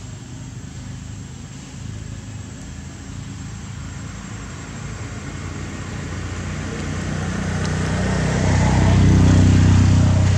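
A motor vehicle's engine running with a steady low hum, growing louder over the second half and loudest near the end.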